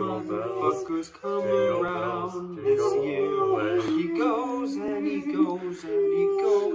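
A small group of male voices singing a Christmas carol a cappella in harmony, with a brief break about a second in.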